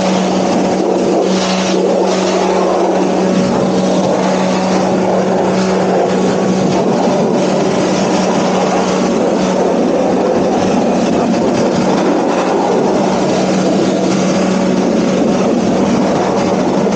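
Pressure washer running steadily and spraying a high-pressure water jet onto a car: a constant low motor-and-pump hum under a loud, even hiss of spray.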